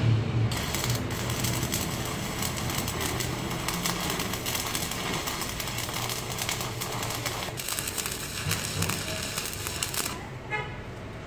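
Stick (shielded metal arc) welding: the electrode arc crackling and sputtering steadily as it burns against a steel box, starting about half a second in and stopping about ten seconds in.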